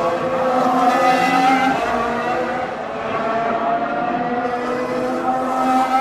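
2016 Formula 1 cars' 1.6-litre V6 turbo hybrid engines running at speed on the circuit, the engine note rising and falling as they change gear.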